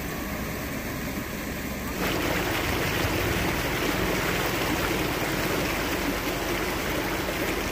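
Steady rushing of flowing floodwater, an even noise that turns abruptly louder about two seconds in and then holds steady.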